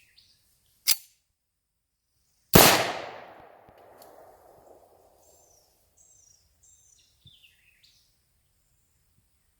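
A single pistol shot about two and a half seconds in, echoing and dying away over about two seconds, from a semi-automatic pistol firing a handloaded round whose primer was made from cap-gun caps. A sharp click comes a second and a half before the shot, and a bird chirps a few times afterwards.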